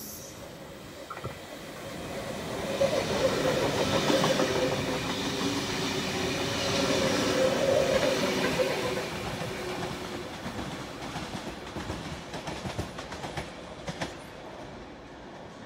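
NSW TrainLink V set double-deck intercity electric train passing through the station without stopping. It builds up, is loudest in the middle with a steady hum, then fades away with the wheels clicking over rail joints.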